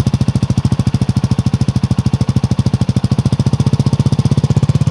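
CFMoto 300NK's single-cylinder engine, just started, idling through its underbelly exhaust with a steady, even putter.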